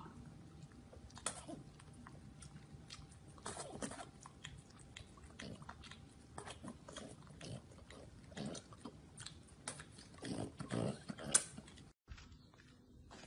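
Wet licking, smacking and biting on ice pops by a French bulldog puppy and a man: irregular short slurps and clicks, busiest and loudest about ten to eleven seconds in.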